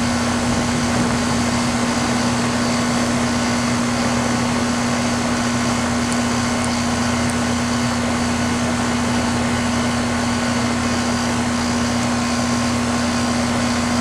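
Old 10 SEER Coleman packaged heat pump running: a steady, loud hum from the compressor and condenser fan, with one strong low tone over a constant rush of fan noise. It measures about 86 dB at 3.5 feet.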